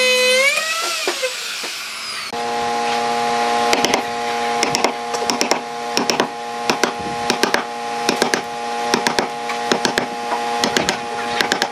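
An electric wood router's motor whine rises briefly and dies away in the first two seconds. Then a wooden mallet strikes a steel chisel again and again, about two sharp knocks a second, as the chisel splits chips off a half-round log, with a steady hum underneath.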